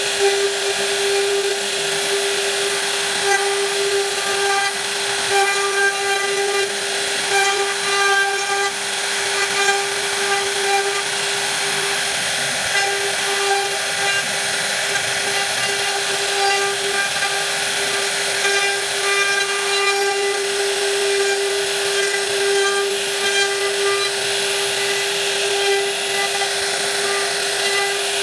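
A woodworking power tool runs steadily with a constant high whine, and its cutting noise varies a little throughout.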